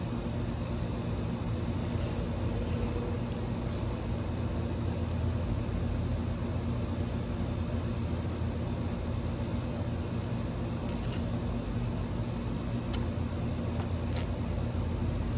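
Steady low background hum with an even level throughout, with a few faint short clicks scattered over it.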